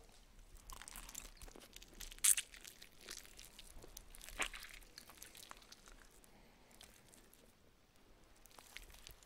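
Close-miked crunchy chewing of food, irregular and crackly, with two sharper, louder crunches about two seconds and four and a half seconds in.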